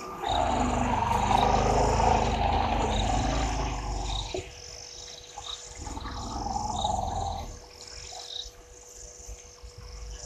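African elephant calling: a long, rough roar with a deep rumble lasting about four seconds, then a shorter second call a couple of seconds later. Birds chirp over a faint steady hum.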